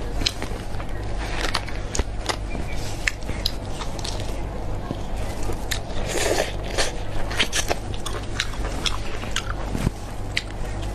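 Close-miked eating sounds: biting into and chewing a large grilled sausage, with many sharp wet clicks and crackles from the mouth and casing, over a steady low hum.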